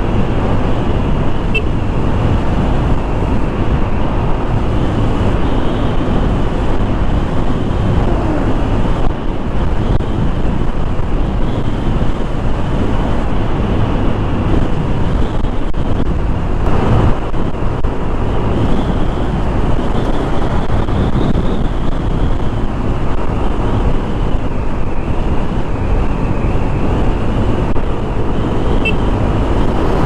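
Kymco KRV 180 scooter's single-cylinder engine running steadily while under way, with heavy wind noise on the microphone.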